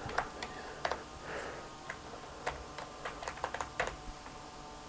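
Irregular key presses on a Pro HT plastic membrane keyboard: scattered soft clicks, with a quick run of them a little past the middle.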